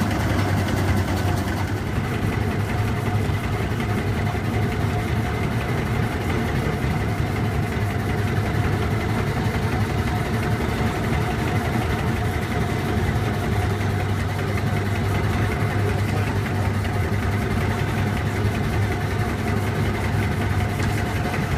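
Steam ploughing engine running steadily as it winds in its cable drum, hauling a tipping plough across the field: a steady low mechanical hum with faint steady tones above it.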